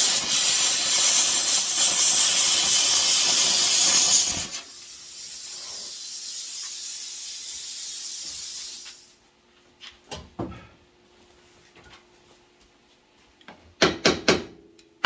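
Plasma cutter cutting car-body steel with a loud, even hiss for about four seconds, then a quieter air hiss that carries on after the cut and stops about nine seconds in. A few short metallic knocks follow near the end.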